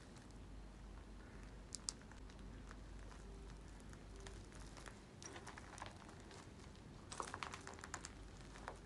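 Faint crunching footsteps on rubble and litter, scattered crackles with a quicker run of crunches about seven seconds in.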